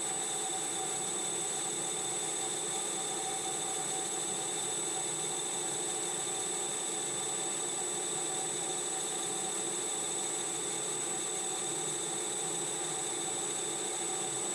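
Metal lathe running steadily while turning a metal bar: an even motor and gear hum with a constant high whine, with no change in pitch or level.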